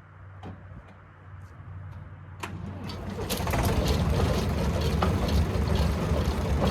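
Old David Brown tractor coming up to a loud, steady run with the manure spreader turning on its PTO shaft. A sharp click about two and a half seconds in, then the noise swells over the next second and holds steady.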